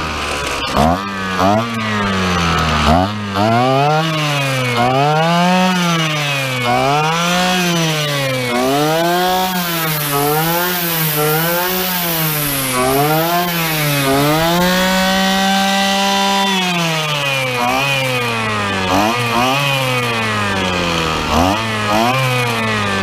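McCulloch petrol string trimmer engine running after repair, revved up and down over and over about once a second, then held at high revs for a couple of seconds before dropping back: it is being warmed up.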